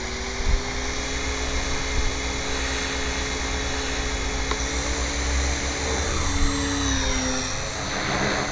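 Gaui RC helicopter in flight: the steady whine of its motor and main rotor, over a low rumble, with the pitch shifting about six to seven seconds in.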